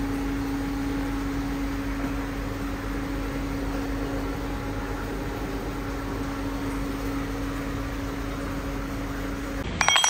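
Induction gold-melting furnace running: a steady electrical hum with one held tone over fan-like noise. The hum cuts off near the end, followed by a brief clink of metal bars.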